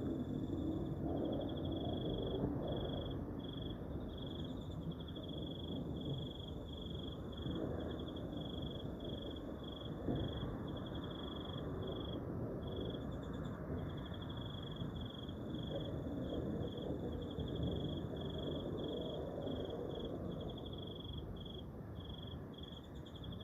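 A low, rough drone swelling and fading slowly over several seconds: the unexplained roar heard from the sky. High, steady cricket chirping runs in regular pulsed trains over it.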